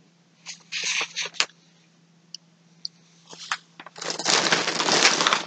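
Packaging rustling and crinkling as yarn is handled: a few short rustles, a quiet pause, then about four seconds in a longer, louder stretch of rustling and crinkling.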